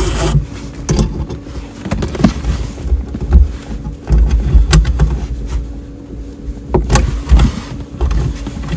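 Irregular knocks, clicks and clunks of hand work on an RV water heater installation, with low rumbling handling noise, over a steady low hum.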